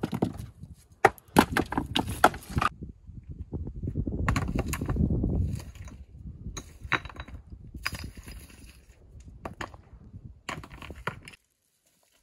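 Repeated sharp knocks and clatters of rocks being shifted and struck against each other by hand, with a low rushing noise for a second or two in the middle. The sound cuts off abruptly near the end.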